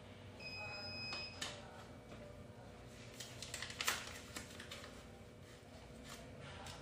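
A steady electronic beep lasting about a second, then a click and a quick run of crackling clicks around the middle as a small lens packet is handled, with a few more clicks near the end.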